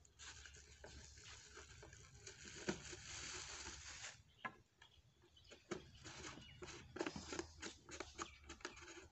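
Soft rustling and crinkling of a thin plastic bag being pulled off a plastic bottle, then a scatter of small sharp plastic clicks and taps as the bottle's screw cap is pressed and turned.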